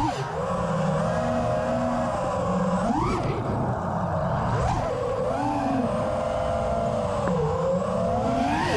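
A 5-inch FPV quadcopter's motors and propellers (RCinPower Smoox 2306.5 2580kv motors, Gemfan 5.1-inch props) whining in flight. The pitch rises and falls with throttle, with sharp punches up about three seconds in and near the end.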